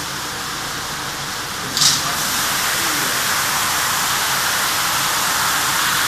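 Water jetting from the spray nozzle bar of an automatic carpet-washing machine onto a rug, a steady hiss. A short sharp hiss comes about two seconds in, after which the spray runs a little louder.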